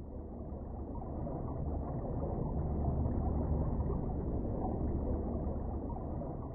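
Muffled underwater ambience: a dull, low rumble with no high sounds in it. It swells to its loudest midway and starts to fade near the end.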